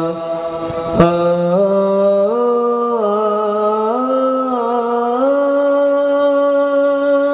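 A man's solo voice singing one long, held melismatic line in Arabic sholawat style, the note climbing in small steps and wavering in ornaments before settling on a higher pitch. A sharp click comes about a second in.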